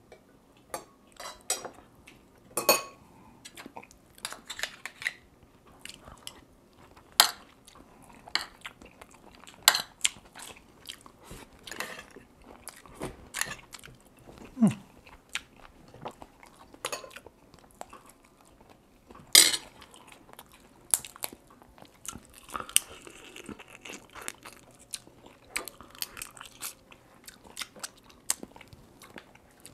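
Close-miked eating sounds of a man eating oyster from the half shell with a spoon, then lobster meat by hand near the end: chewing and biting heard as irregular sharp smacks and clicks, a few much louder than the rest.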